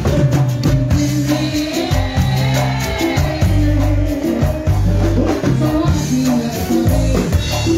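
Live cumbia band playing through the PA: sustained bass notes under a keyboard melody, with steady percussion keeping the rhythm.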